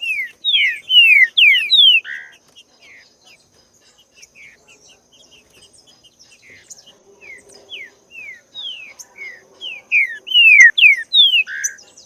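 Green-winged saltator (trinca-ferro) singing: a quick phrase of loud, downward-slurred whistled notes, softer scattered notes in between, then another loud phrase of the same notes near the end.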